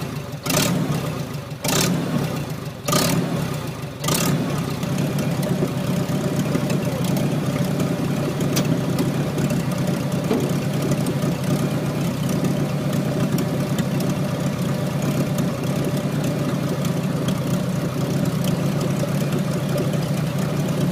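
An engine running at a steady idle, with a few sharp knocks or clanks in the first four seconds.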